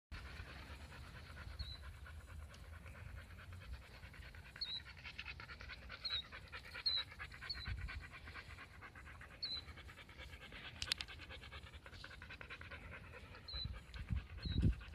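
A dog panting steadily close by, with short high chirps now and then.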